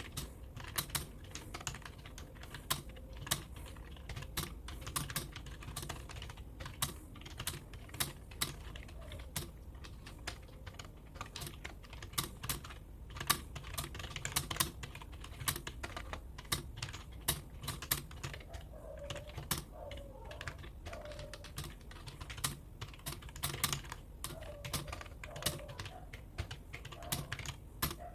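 Typing on a computer keyboard with hard-feeling keys: a continuous, irregular run of key clicks, several a second.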